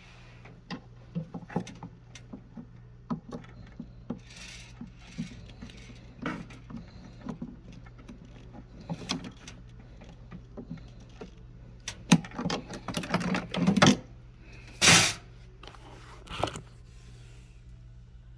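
Irregular clicks, taps and rattles of hand work on a refrigerator's parts over a steady low hum. The clicks grow busier and louder about twelve seconds in, and a short, louder rush of noise follows.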